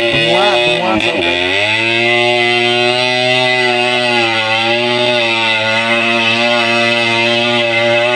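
Yamaha RX100's 98 cc two-stroke single-cylinder engine revving hard with its muffler removed, the pitch dipping and rising in the first second or so, then held at high revs with slow wavers.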